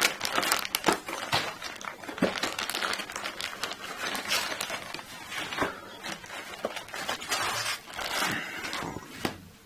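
Packaging crinkling and rustling as a laptop's accessory package is handled and opened by hand, with scattered clicks and taps.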